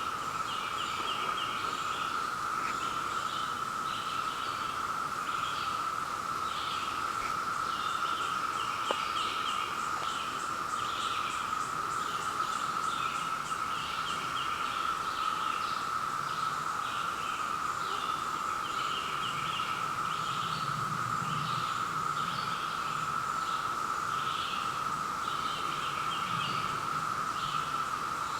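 Brood X periodical cicadas (Magicicada) chorusing: a steady, unbroken high-pitched drone. Short, higher chirps repeat over it.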